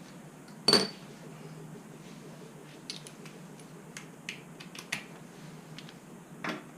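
Light metallic clinks and taps of hand tools on metal. One sharper, ringing clink comes about a second in, then a few fainter ticks.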